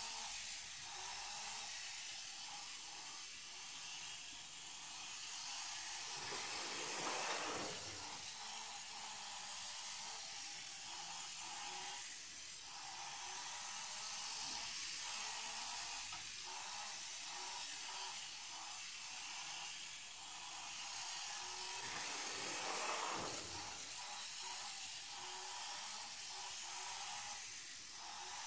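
Miniature smartphone-controlled RC car's electric motor whirring with a steady hiss as it drives around the mat, swelling louder about seven seconds in and again about twenty-three seconds in.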